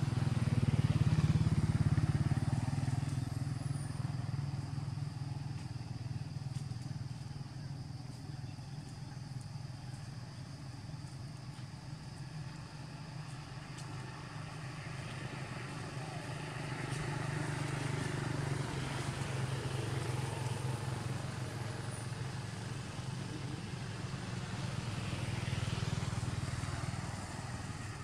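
Steady low rumble of motor vehicle engines running nearby, swelling about a second in and again in the latter half as vehicles pass.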